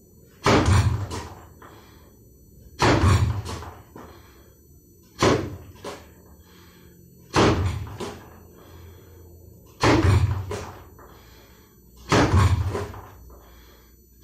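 Bare-fist kizami zuki jab punches landing on a wooden makiwara striking post: six sharp knocks, about one every two and a half seconds, each followed by a shorter, fainter knock.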